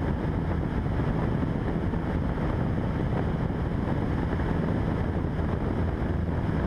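Cessna 172's engine and propeller droning steadily in flight, heard through the headset intercom feed.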